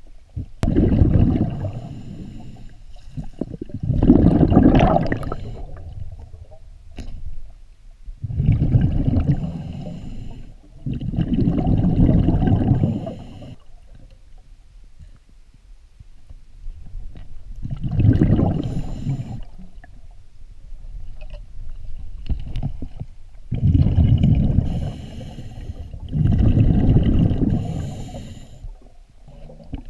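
A scuba diver breathing through a regulator underwater: the exhaled air bubbles out past the camera in about seven bursts of gurgling, each a second or two long, with quieter gaps between breaths.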